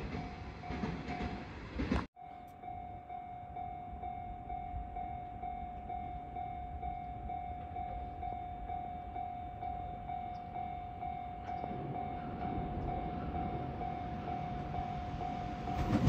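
Level-crossing electronic warning bell ringing, a steady repeated ding that breaks off briefly about two seconds in and then carries on. Under it the rumble of a 521 series electric train approaching grows louder toward the end.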